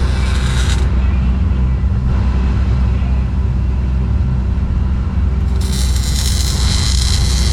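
Steady low engine drone, with a MIG welding arc sizzling until about a second in and again from about five and a half seconds in.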